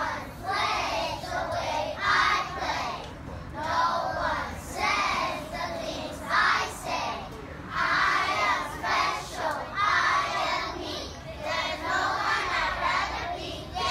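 A group of young children singing together in unison, in short phrases.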